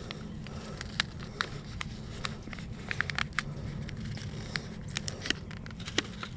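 Thin black plastic seedling cell pack crackling and clicking as it is squeezed and flexed to pop a pepper seedling's root ball out of its cell: irregular sharp clicks, thickest about three seconds in and again about five seconds in, over a steady low rumble.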